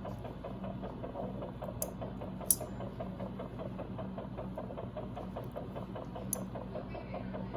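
Steady equipment hum with a fast, even pulsing about six beats a second, and two sharp metallic clicks of surgical instruments, one a few seconds in and one near the end.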